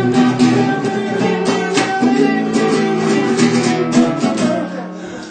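Acoustic guitar strummed in a rhythmic instrumental passage of chords, dying down near the end.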